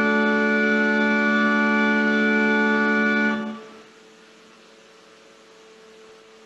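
Organ holding the final chord of a prelude, steady and unchanging, released about three and a half seconds in and dying away quickly; after that only a faint steady hum remains.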